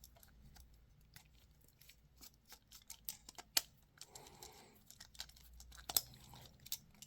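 Faint clicks, ticks and scrapes of a Phillips screwdriver loosening the terminal screws on a wall power socket, with the plastic socket and its wires being handled; a few sharper clicks stand out, about three and a half and six seconds in.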